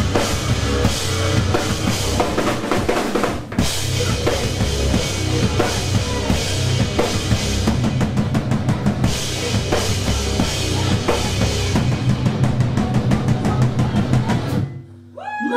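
Live rock band playing loud, drum-heavy music with electric guitar, pounding bass drum and snare. The band cuts out for a moment near the end, then comes back in with held guitar notes.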